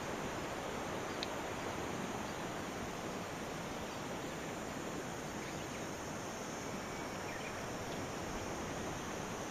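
Steady outdoor noise of wind and sea surf, with one faint click about a second in.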